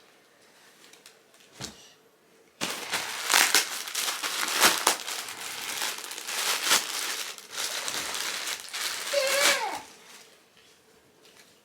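Plastic packaging bag crinkling and rustling as clothing is handled in it, starting abruptly about two and a half seconds in and going on for about seven seconds before dying away.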